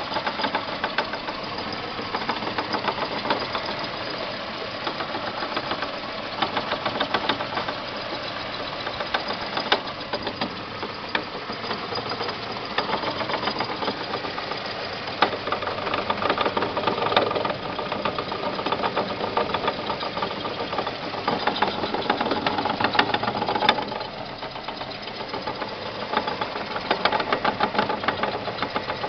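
Renault Clio's engine running with a fast, steady knocking clatter. The owner traces the noise to the tripod joint inside the driveshaft's tulip housing, with the CV joints new, while his mechanic blames the engine.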